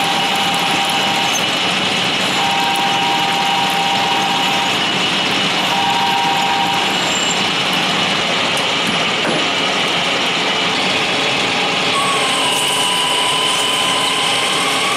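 Warner & Swasey #2 turret lathe running, a drill cutting into a spinning aluminum blank under flood coolant, a steady machine noise with faint whining tones. About twelve seconds in, a new wavering whine comes in as the next turret tool starts its cut.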